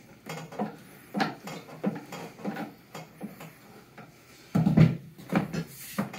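Tool-handling noise: a string of light clicks and knocks of a flathead screwdriver against the plastic EsyBox pump housing and its threaded side bung, then a louder, deeper thump about four and a half seconds in as tools meet the table and the casing is handled, followed by a couple more knocks.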